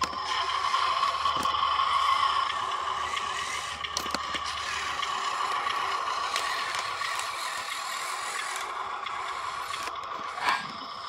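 Radio-controlled dump truck driving over rough dirt: its electric motor and gearbox give a steady whine, with rattling and clatter from the chassis and load. The whine is loudest in the first few seconds and eases off as the truck pulls away.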